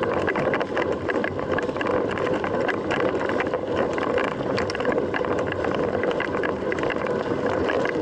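Mountain bike being ridden: steady tyre and wind noise with frequent small clicks and rattles.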